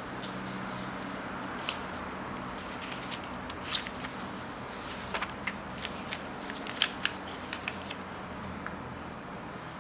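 Origami paper being folded and creased by hand: scattered crisp crackles and snaps of the paper, thickest in the middle, over a steady low hum.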